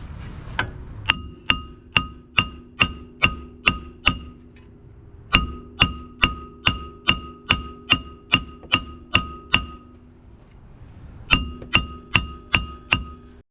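Mallet striking a metal brake part in three runs of steady blows, about two a second, each blow ringing with a clear metallic tone.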